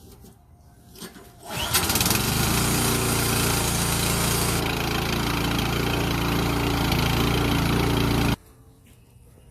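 Yard Machines snowblower's 179cc Powermore single-cylinder engine starting about a second and a half in and running steadily for about seven seconds, then cutting off suddenly. It is running after its carburetor has been cleaned to cure a no-start.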